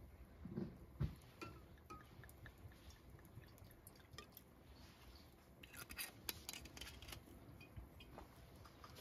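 Red wine poured from a glass bottle into a stainless steel cup, a faint liquid trickle, with a soft knock about a second in and a few light clicks around six seconds in.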